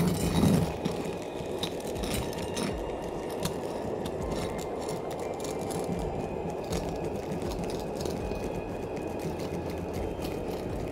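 Hot air welder's blower running steadily as it heats the back of a self-adhered membrane patch, with scattered light clicks and crackles from a hand roller pressing the granulated cap sheet.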